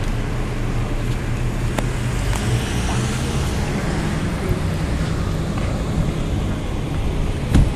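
Steady road traffic noise: cars running past with a low engine hum, and a short thump near the end.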